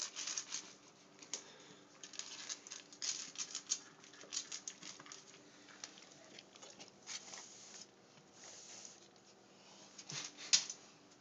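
A large dog eating dry kibble from a dish: irregular bursts of crunching and kibble clicking against the dish, with short pauses between mouthfuls.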